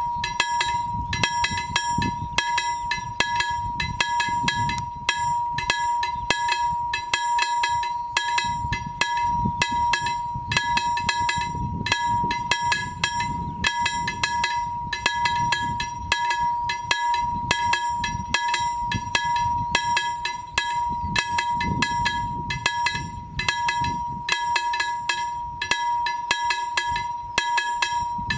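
Level crossing warning bell ringing in rapid repeated strokes without a break, over a steady high tone, signalling that the crossing is closed for an approaching train.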